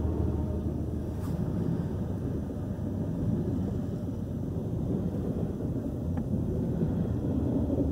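Steady low rumble of a CN freight train's cars rolling past, heard from inside a car with rain on the glass.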